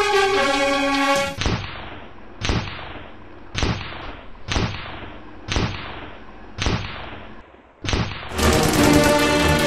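Music cuts off and seven sharp booming hits follow, about one a second, each ringing out briefly before the next. The music comes back near the end.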